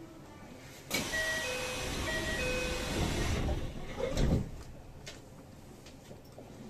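Kintetsu 3220 series train doors closing: a two-note door chime sounds twice over a rush of hiss, and about four seconds in the doors thud shut.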